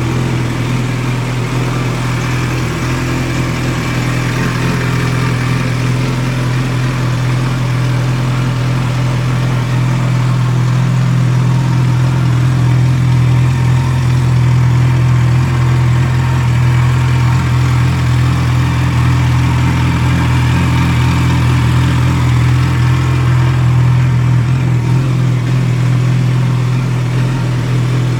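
2009 Yamaha FZ1's inline-four engine idling steadily through a full Micron exhaust with Micron headers.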